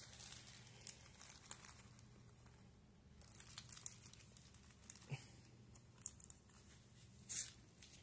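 Packaging being handled during unboxing: faint, scattered crinkling and rustling with a few light knocks, and a brief louder rustle near the end.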